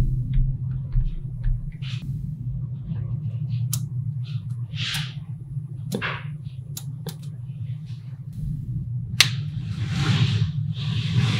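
Small magnetic balls clicking and snapping together as they are handled, with a sharp click every second or two among fainter ticks and a few brief swishes, over a steady low hum.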